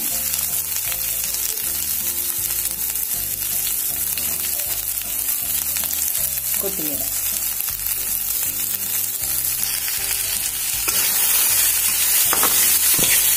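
Diced onion, potato, carrot and sweet corn sizzling steadily as they fry in oil in a shallow pan. Near the end a spatula stirs them and the sizzle gets a little louder.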